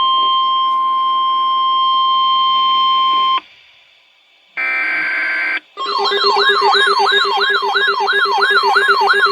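Emergency alert broadcast tones. A steady single-pitch alarm tone ends about three and a half seconds in. After a short pause comes a one-second buzzy burst, then from about six seconds in a siren wails rapidly up and down, about three sweeps a second, over a steady lower hum.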